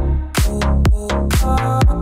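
Electronic dance music with a steady four-on-the-floor beat, a kick drum about twice a second under a heavy bass line.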